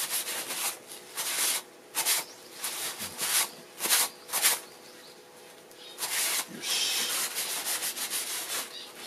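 Used lacquer-wiping paper rubbed firmly over a black-lacquered wooden bowl in a run of scraping strokes, pausing for about a second midway. The excess raw lacquer (urushi) is being wiped off the bowl in a wiped-lacquer (fuki-urushi) finish.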